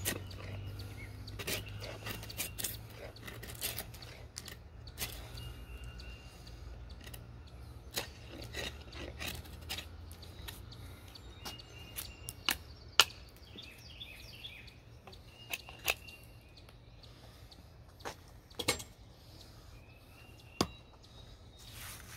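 A knife shaving curls of wood from a stick, a sharp scrape at each stroke, coming irregularly with pauses between. Birds chirp faintly now and then.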